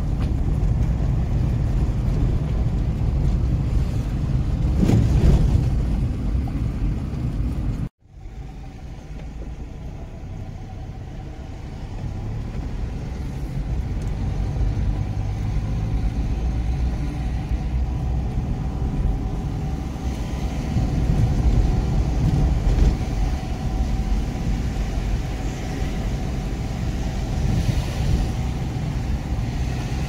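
A car driving slowly on a narrow road, heard from inside: a steady low rumble of engine and tyres. About eight seconds in the sound cuts out for an instant and comes back quieter, then slowly builds up again.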